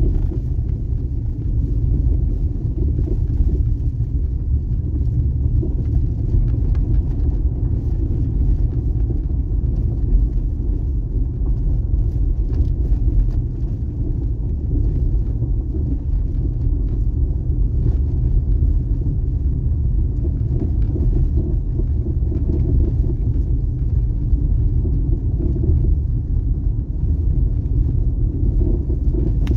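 A vehicle being driven: a steady low rumble of engine and road noise.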